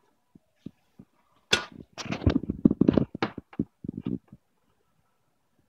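Handling noise from plugging a cable into a small plastic Roku Express box on a desk. A few soft clicks are followed about a second and a half in by a busy run of short knocks, clicks and rattles lasting about three seconds.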